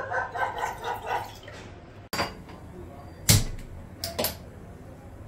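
Water pouring and gurgling from a small cup into a steel saucepan for about a second and a half. Then come a sharp click, a loud thump and two more clicks while a gas stove burner is lit with a hand-held spark lighter.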